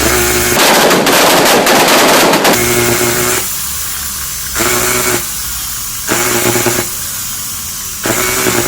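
Makita angle grinder's electric motor running with loud rapid crackling and popping for the first two seconds or so, then humming with surges in pitch and level about every second and a half. The crackling is the sign of heavy sparking inside the motor, which the repairer traces to a burnt part.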